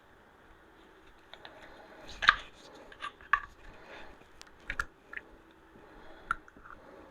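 Small generator carburetor parts being handled and worked loose: a scattering of small clicks, taps and scrapes, the loudest knock about two seconds in.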